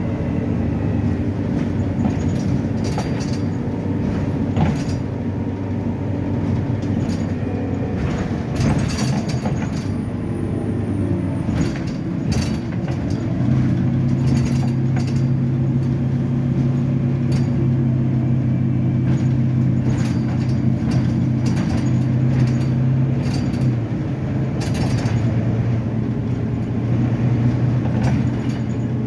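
Volvo B9TL double-decker bus's diesel engine running with a steady drone. For about ten seconds in the middle the hum grows louder, then it drops back. Short knocks and rattles sound throughout.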